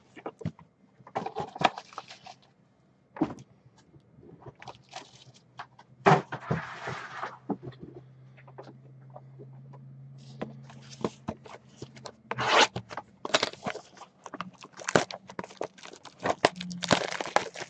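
Trading card box being opened by hand: scattered scrapes, clicks and crackling of shrink wrap and cardboard, with a denser crackling tear about six seconds in.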